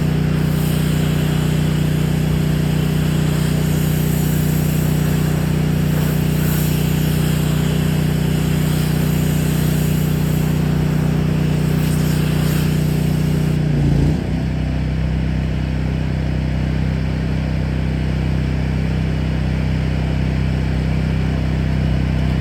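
Engine-driven pressure washer running steadily under load while water blasts through an X-Jet nozzle. About two-thirds of the way through, the spray hiss cuts off and the engine carries on at a slightly different, steadier note, as when the gun's trigger is released.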